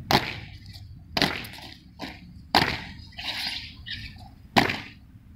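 A drill squad's boots stamping on pavement in unison, five sharp stamps at uneven intervals, one weaker than the others, with shorter higher-pitched calls in between.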